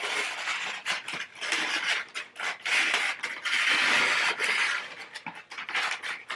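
Scissors sliding through wrapping paper, with the paper crackling and rustling as it is handled. The sound comes as long hissing strokes with short crackles between them.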